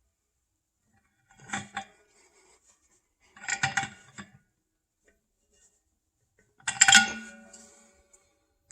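Metal pipe fittings and tools clinking and clanking in three short bursts, the last one the loudest and ringing briefly.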